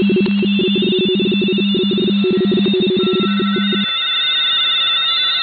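Several 45.45-baud RTTY (radioteletype) signals from a shortwave receiver on the 20-metre amateur band: two-tone frequency-shift keying warbling rapidly between its pair of pitches. A strong low-pitched signal stops about four seconds in, while fainter higher-pitched signals carry on.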